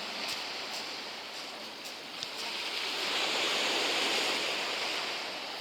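Sea surf washing on the shore, swelling about three seconds in and easing off near the end.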